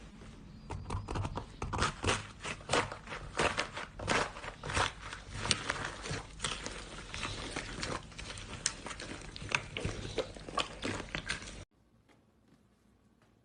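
Slime being squeezed and kneaded, giving dense, irregular crackling and popping clicks that stop abruptly near the end.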